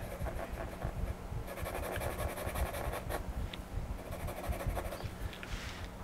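Pastel pencil scratching and rubbing across paper as it draws, with a faint steady hum underneath.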